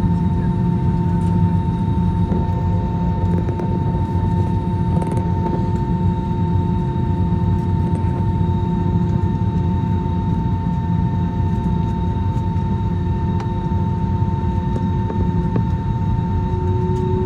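Airbus A321neo's Pratt & Whitney PW1133G engines running, heard from inside the cabin: a steady low drone with steady whining tones over it. One tone rises slightly in pitch near the end.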